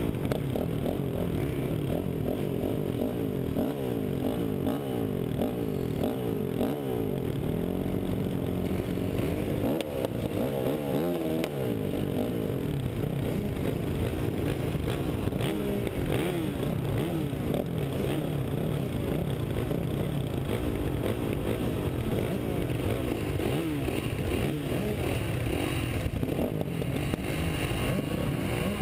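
Several motocross bikes running together on a start line, the nearest a Honda CRF450R's single-cylinder four-stroke engine, idling and being revved so that many overlapping engine notes rise and fall.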